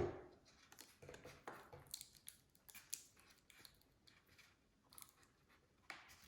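Faint snips, clicks and rustles of a small piece of adhesive tape being cut and pressed on by hand, with a sharper knock at the very start.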